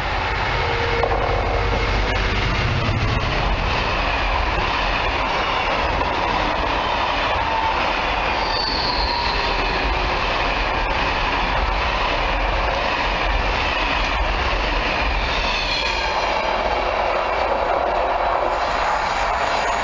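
Class 66 diesel-electric locomotive with its two-stroke EMD V12 engine passing close at the head of a loaded timber train. The long rake of log wagons follows, rumbling and clattering over the rails, with a brief high squeal about eight seconds in.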